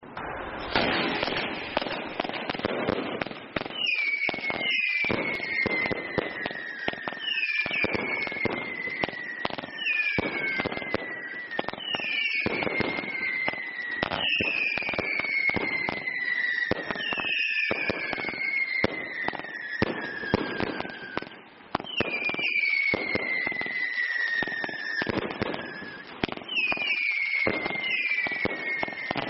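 Consumer firework barrages firing in quick succession. Whistling shots fall in pitch over about two seconds each, with a new whistle every second or two. Under them run continuous crackling and the bangs of bursting shots.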